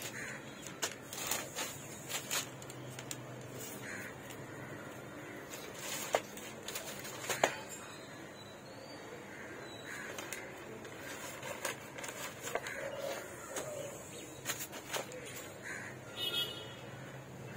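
Newspaper sheets rustling and crinkling as hands spread and smooth them flat, with sharp crackles now and then, two louder ones in the middle. Birds call in the background.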